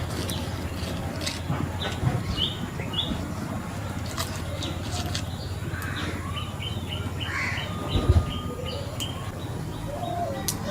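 Small birds chirping in short, quick runs of high notes over a steady low rumble, with one sharp thump about eight seconds in.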